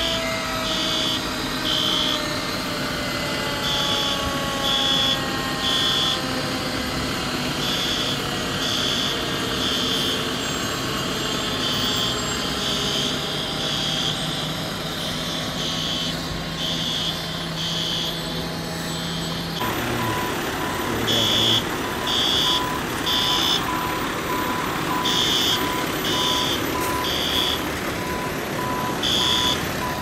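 Fire alarm sounding in the temporal-three evacuation pattern: three high beeps, a pause, repeating about every four seconds, over the running engines of fire apparatus. Over the first seconds a siren winds down, and about two-thirds of the way in a lower, faster beeping joins.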